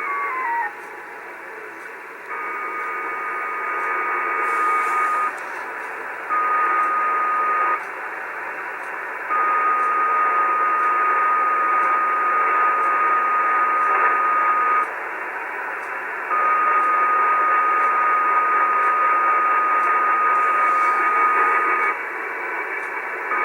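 Icom IC-730 transceiver receiving 75-meter single sideband at 3800 kHz: band hiss with a repeating interfering signal, a steady whistle-like tone with a rush of noise that keys on and off every few seconds. The noise is unidentified and almost like a beacon, and it drowns the weak distant station. In the first second a whistle falls in pitch.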